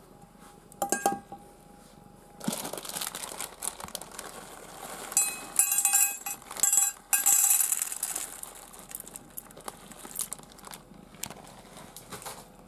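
Plastic bag of dry cat food crinkling as it is handled, loudest about five to eight seconds in, with kibble clinking into a stainless steel bowl. Toward the end it gives way to softer scattered clicks as the cat starts eating from the bowl.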